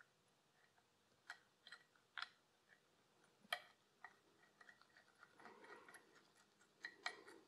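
A handful of faint, irregular small clicks as a nut is threaded by hand onto the oil pump's drive sprocket, with a soft rustle of gloved fingers.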